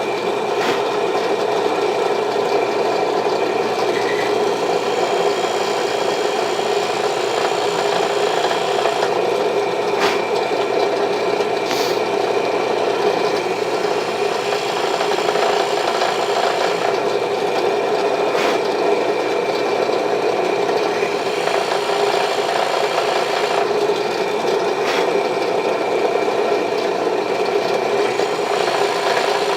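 Electric drill running steadily, its bit cutting into the wooden sword handle to bore a hole for an insert.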